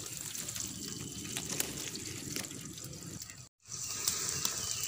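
Cooking oil sizzling in a frying pan, with scattered crackling pops. The sound cuts out for a moment about three and a half seconds in.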